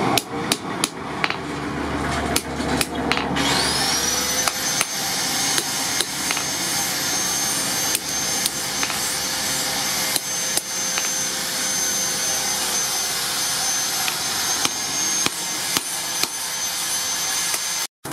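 Repeated, irregular hand-hammer blows on metal at an anvil, striking a blade set across red-hot rebar. Under them runs a steady whirring hiss, and a high whine winds up about three seconds in and holds steady for most of the rest.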